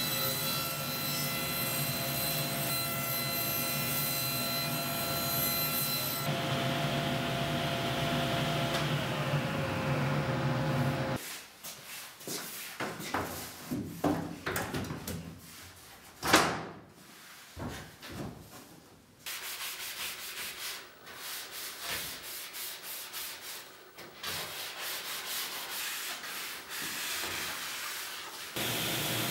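Table saw running as a large plywood sheet is fed through the blade, a steady machine sound with a constant whine. It stops abruptly about a third of the way in. Scattered knocks, taps and rubbing of wooden panels being handled follow, with one sharp knock about halfway through, and a steady machine sound starts again near the end.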